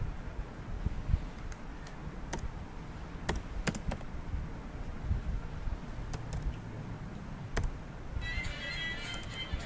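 A few sparse computer-keyboard key clicks over a low background rumble. Near the end, a high-pitched musical sound comes in.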